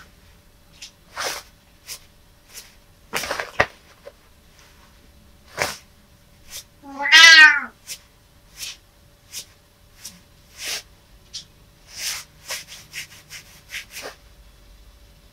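A domestic cat gives one meow about seven seconds in, the loudest sound here. Short clicks and rustles are scattered around it.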